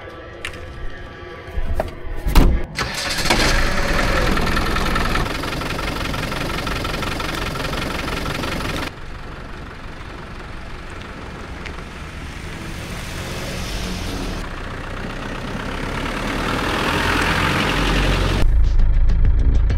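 Land Rover Defender's engine starting with a sharp knock about two and a half seconds in, after a few light clicks, then running steadily. The sound drops and swells abruptly a couple of times, and a deeper rumble sets in near the end.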